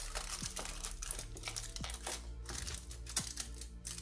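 Aluminium foil crinkling and crackling as it is pressed and folded down by hand over a dish, busiest in the first couple of seconds and thinning toward the end.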